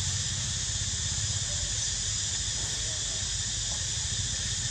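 Steady outdoor background: an even high hiss over a fluttering low rumble, with no distinct event standing out.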